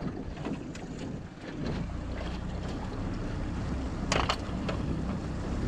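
Yamaha F25 four-stroke outboard running, its steady low drone coming up about one and a half seconds in as the jon boat gets under way, with wind on the microphone. A sharp clatter sounds a little past halfway.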